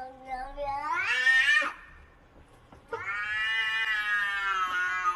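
A cat yowling in two long calls: the first rises in pitch for about a second and a half, then after a short pause a longer, steadier call follows.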